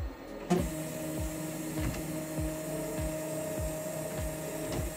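Artillery Sidewinder X2 3D printer's Z-axis stepper motors starting with a click about half a second in, then running with a steady whine as the gantry travels on scratched, dented roller wheels. A low thump repeats about every 0.6 s.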